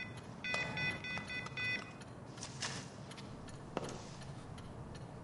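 Mobile phone keypad beeping as a number is dialled: a quick run of about six short, even key tones.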